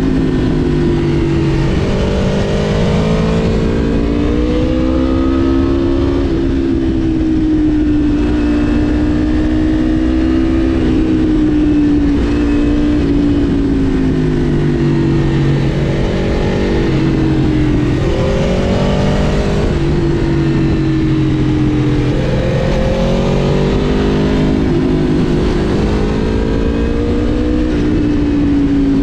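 Aprilia RSV4 Factory V4 sport-bike engine under way, its pitch climbing and dropping again and again as the throttle is opened and closed and gears change, over a steady rush of noise.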